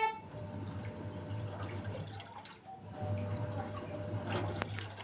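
Automatic washing machine filling with water: water running and dripping into the drum over a steady low hum. The last note of its electronic melody ends right at the start.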